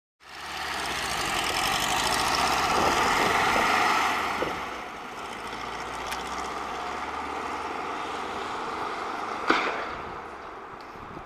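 1978 VW Super Beetle's air-cooled flat-four engine running as the car drives away. It is loudest for the first four seconds, then drops and stays quieter as the car moves off. A single sharp knock comes about nine and a half seconds in.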